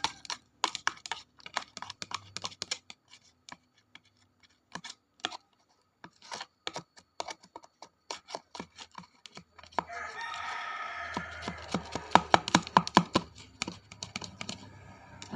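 Glue-and-activator slime being stirred, giving irregular sticky, wet clicks and pops. From about ten seconds in, a longer pitched sound joins in the background while the clicking gets louder and quicker.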